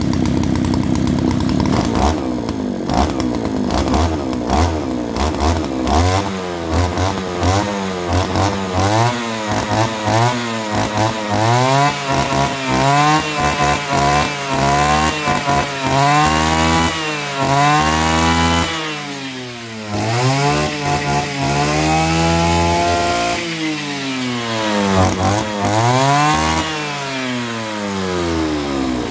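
Kioritz RMB343D brush cutter's 34 cc two-stroke engine running. It holds steady at first, then is revved up and down over and over, the pitch climbing and falling with each blip of the throttle, with a few longer held revs.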